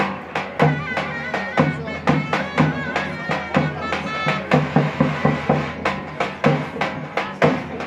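Traditional Turkish wedding music: a big drum beating a fast, uneven rhythm under a shrill double-reed pipe melody, the davul-and-zurna pairing.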